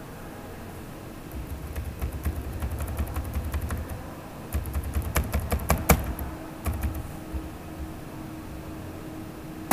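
Tapping on a computer keyboard in quick runs of keystrokes, then a few sharper, separate clicks about five to seven seconds in and one loud click at the very end.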